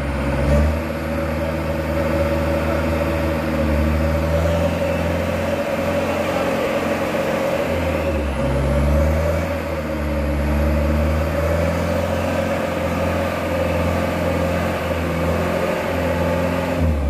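Mitsubishi Canter light truck's diesel engine working hard under load, its pitch rising and falling several times as it climbs a slippery mud road.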